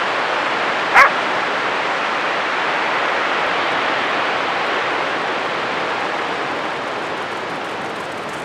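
A huntaway dog gives one short bark about a second in, over a steady rush of surf.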